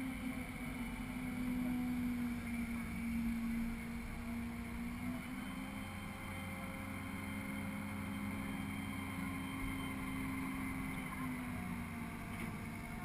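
Steady engine hum of the crane lifting the boat, muffled through the camera housing on the hull. Its pitch shifts slightly a couple of times.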